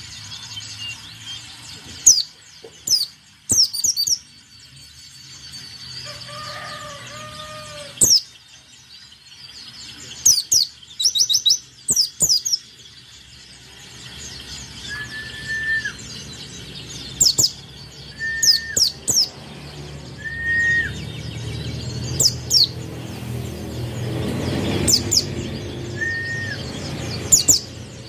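A caged white-eye (pleci) singing in repeated quick bursts of very high, rapid chirps, with a few short, lower whistled notes between them. A low rumble of background noise swells past the middle.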